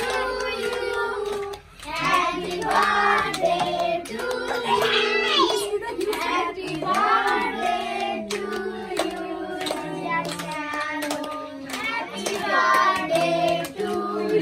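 A group of children and adults singing a birthday song together, clapping along in time. The singing pauses briefly about a second and a half in, then carries on.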